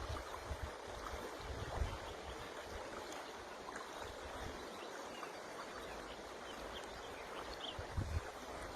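River water flowing with a steady rushing sound, with uneven low rumbles now and then, strongest near the start and near the end.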